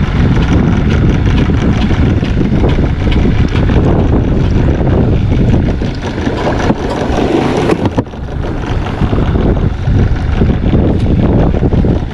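Loud wind buffeting on an action camera's microphone held just above the sea, with water lapping and splashing against the side of an inflatable kayak.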